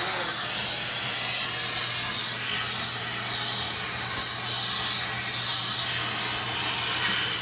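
Oxy-fuel torch flame hissing steadily as it melts platinum in a casting crucible, with a low steady hum underneath.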